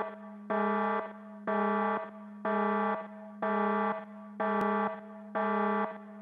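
An electronic alarm buzzer beeping steadily, one buzzy half-second beep about every second, all at the same pitch.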